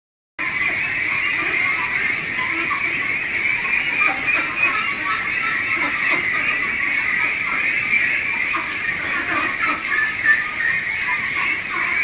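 A large flock of Pekin ducks calling all at once, a steady, dense din of overlapping calls that starts suddenly within the first half second.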